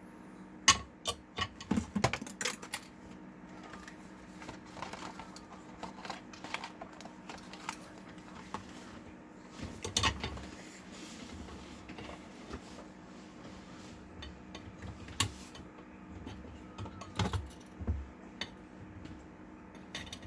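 Irregular small clicks, taps and clinks of hand tools and small metal parts being handled while a 3D printer is taken apart, a few sharper knocks among them, over a faint steady hum.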